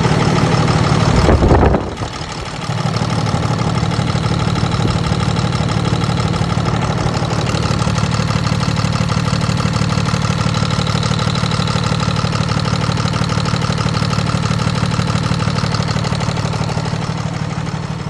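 Cummins ISB inline-six diesel engine idling steadily, with a brief loud surge about a second and a half in. This is during an injector check in which the owner finds injector number 6 internally damaged and leaking fuel rail pressure.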